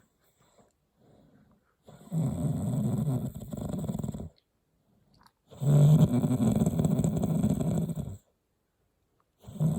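A person snoring heavily: long, low, buzzing snores of about two to two and a half seconds each, three in a row about three and a half seconds apart, with faint breathing in the gaps.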